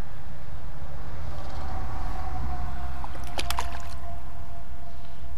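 Steady low rumble on a body-worn camera's microphone, with a faint steady tone and a quick cluster of sharp clicks about three and a half seconds in.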